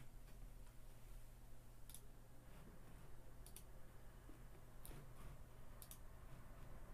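Near silence: a low steady hum with four faint, short clicks spaced a second or so apart.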